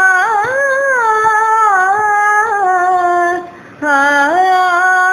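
A woman singing a Carnatic devotional song, holding long notes with quick ornamental turns in pitch. She breaks off briefly about three and a half seconds in, then starts a new note.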